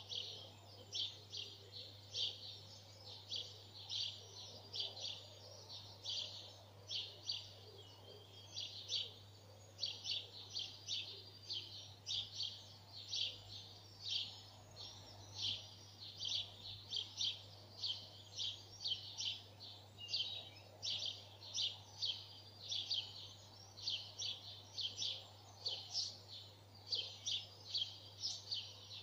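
Dawn chorus birdsong: short high chirps repeated about two a second without a break, over a low steady hum.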